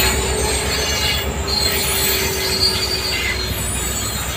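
Freight train of covered wagons behind an Indian Railways diesel locomotive passing close by: a steady rumble of wagon wheels on the rails with a thin held tone over it. The tone fades out near the end as the sound eases slightly.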